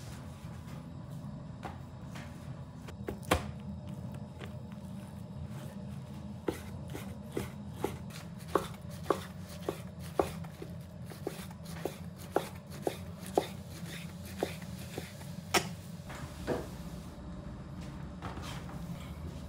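Kitchen knife chopping fat into cubes on a wooden cutting board: sharp, irregular strikes about two a second over a steady low hum, stopping about three seconds before the end.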